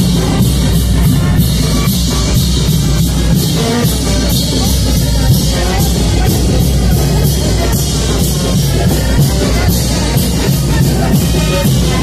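Loud band music for the chinelo leaping dance, with drums and cymbal strokes on a steady quick beat.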